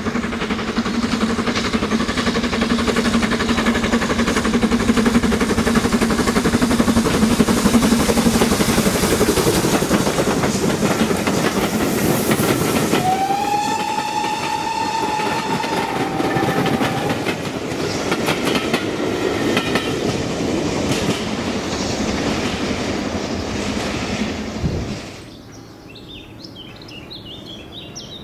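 A steam-hauled train passing close by, with a loud rattle of wheels and wagons on the rails. About halfway through, the locomotive's whistle gives one single-note blast lasting a few seconds. Near the end the train noise cuts off suddenly, leaving birdsong.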